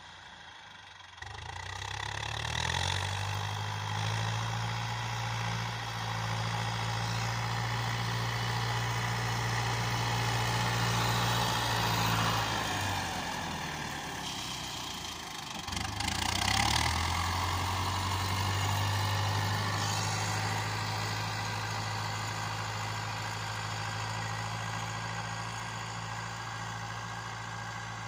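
Steyr 8073 tractor's diesel engine running steadily while pulling a plough through the field. Its note fades and drops away around the middle, then picks back up about sixteen seconds in.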